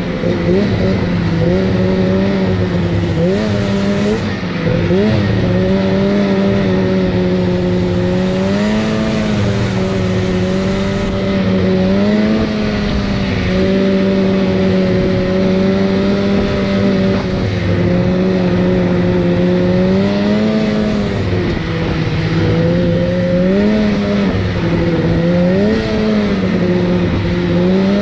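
Snowmobile engine running at trail speed, heard from the rider's seat, its pitch rising and dipping a little every few seconds with the throttle.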